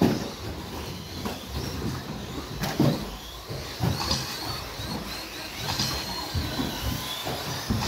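1/10-scale electric stadium trucks with 13.5-turn brushless motors racing on a carpet track. The motors give a high whine that rises and falls as the trucks speed up and brake, over a rough rumble of tyres. A sharp knock comes at the start and another just under three seconds in.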